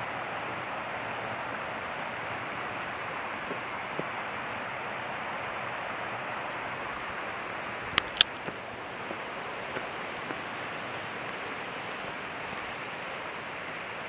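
Steady rush of a small waterfall and its stream. About eight seconds in there are two sharp clicks close together, then a few faint ticks.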